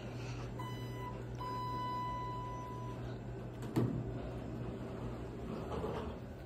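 Passenger elevator arriving: a short electronic beep, then a longer steady beep of about a second and a half, followed near the middle by a clunk as the doors start to slide open, over a low steady hum.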